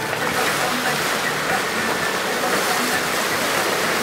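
Steady babble of a large crowd, many voices talking at once and blending into an even hiss, with no single voice standing out.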